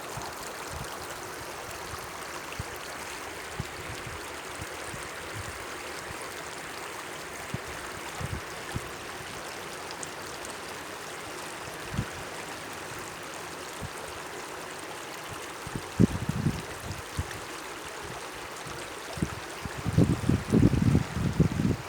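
A small stream babbling steadily over stones. About three-quarters of the way through, and again near the end, gusts of wind buffet the microphone with loud, low rumbling bursts.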